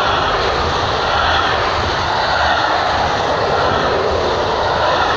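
Intermodal freight train of pocket wagons carrying lorry trailers rolling past close by: a loud, steady rush and rumble of wheels on rail.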